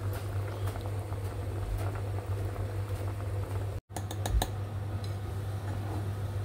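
Chicken pieces boiling in a pot of water: a fine, even bubbling crackle over a steady low hum. After a cut about four seconds in, a few light clicks and taps as olives are picked out of a glass jar.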